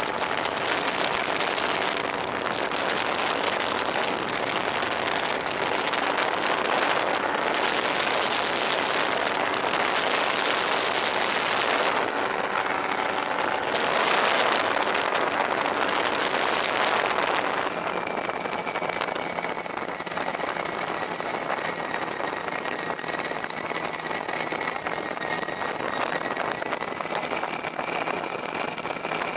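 Fox V4 ultralight aircraft in flight, its engine running steadily under heavy wind rush on the microphone. About two-thirds of the way through the wind noise drops and the engine's steady drone and whine come through more clearly.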